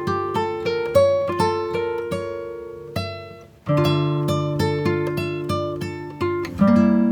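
Background music: an acoustic guitar picking a melody, several plucked notes a second, with a brief pause about three and a half seconds in.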